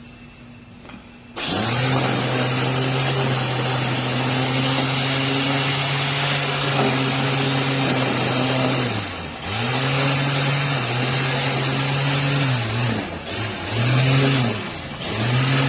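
Black+Decker MTE912 corded electric string trimmer switching on about a second and a half in and running at full speed, its 6.5-amp motor whining over the hiss of the spinning line. In the second half the motor speed drops and recovers several times in quick succession.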